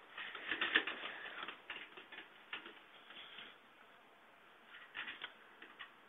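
Power-supply cables being pushed aside by hand inside a metal computer case: faint rustling with light clicks and taps, a cluster at the start and another about five seconds in.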